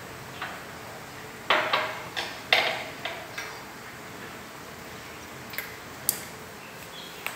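Sharp taps and knocks on a plastic high-chair tray as a baby's hand grabs at food pieces: about six in quick succession starting about a second and a half in, then a few single ticks later.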